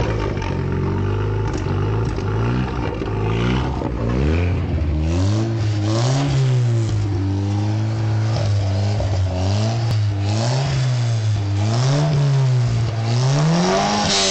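Alfa Romeo 75 engine running, first at a low speed, then from about four seconds in held higher and blipped up several times, each rev rising and dropping back.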